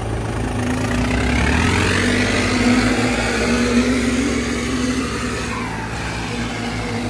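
Two diesel tractor engines, a John Deere 5039D and a New Holland 3630, running hard under heavy load as they pull against each other in a tug-of-war. The engine note climbs about two seconds in, then holds steady.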